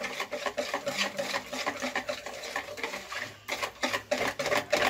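Wire whisk beating cake batter in a plastic bowl with rapid, repeated scraping strokes, whipping air into the batter, with a short pause about three and a half seconds in.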